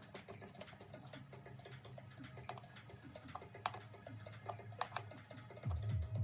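Irregular light metallic clicks and ticks from the centre nut being turned on a Mercedes-Benz air cleaner's aluminium lid, over quiet background music whose bass gets louder near the end.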